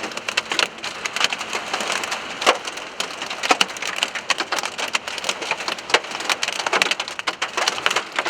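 Hailstones pelting a car's roof and windshield in a rapid, irregular stream of sharp cracks over the hiss of heavy rain: loud, as heard from inside the car.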